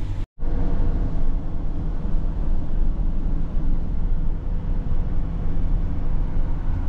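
Car driving along the road: a steady low rumble of engine and tyre noise, broken by a brief moment of silence about a third of a second in.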